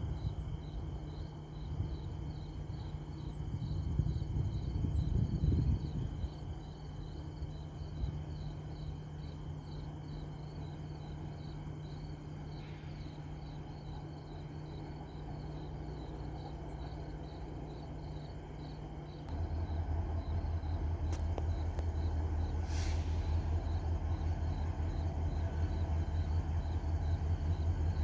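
Crickets chirping in a steady, even pulse over the low hum of an approaching train. About two-thirds of the way in, a deeper, louder engine drone comes in abruptly and holds.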